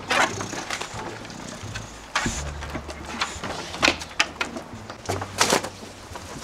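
Scattered light clicks and knocks of a dog and a person moving about on a wooden deck, with a low rumble that comes and goes.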